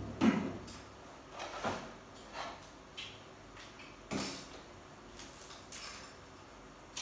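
Irregular knocks and clatters of objects being handled and set down, the loudest just after the start and about four seconds in, with softer ones in between.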